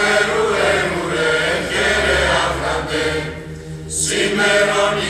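Mixed choir of adults and children singing a Greek Christmas hymn in chant style, with a short break between phrases about three and a half seconds in.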